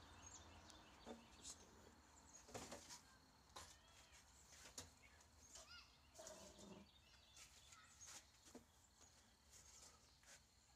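Near silence: a few faint scattered knocks and clicks, with some faint short chirps that sound like birds.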